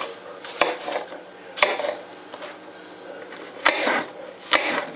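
Kitchen knife slicing apples on a cutting board: four sharp knocks of the blade striking the board, unevenly spaced about a second apart, each with a brief crisp sound of the blade going through the fruit.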